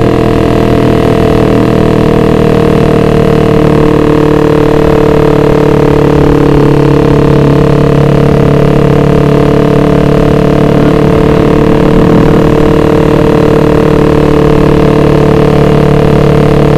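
Suzuki Satria F150's ported single-cylinder engine running through a very loud road-race exhaust, holding a near-steady pitch while the bike cruises.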